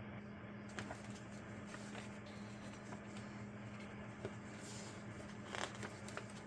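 Faint paper rustling and small clicks as a printed instruction manual is handled and leafed through, with a few louder rustles about five and a half seconds in. A steady low hum runs underneath.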